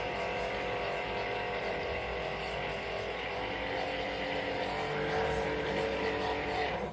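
Traxxas Titan 550 brushed electric motor running submerged in a glass of water with a steady whine, being cleaned by spinning it under throttle. Its pitch shifts a couple of times and it cuts off abruptly at the end.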